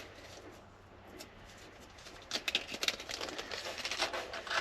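Small metal clicks, taps and rustling as a roof-lock's bolt and washers are handled and fitted, starting about two seconds in.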